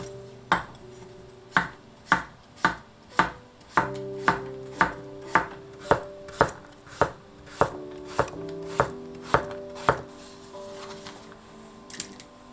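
Kitchen knife chopping on a cutting board: about seventeen sharp strokes at roughly two a second, stopping about ten seconds in.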